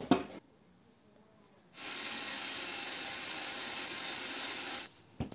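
Electric mixer grinder running steadily for about three seconds, grinding jaggery and grated coconut in its jar, then cutting off abruptly. A knock comes just before it, and a few small clicks follow.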